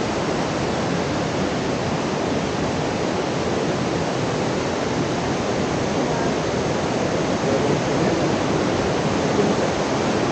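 Steady rushing of fast-flowing water, an even unbroken roar.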